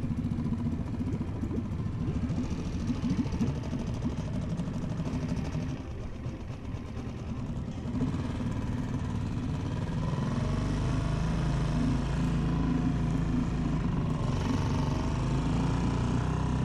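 Small outboard motor on an inflatable dinghy, running as the boat pulls away. About ten seconds in it speeds up, its pitch rising, then runs steadily and louder.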